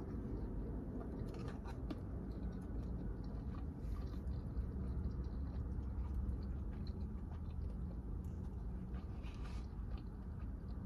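A person chewing shrimp with her mouth closed, with a few soft clicks from a fork picking at a paper takeout box, over a steady low hum.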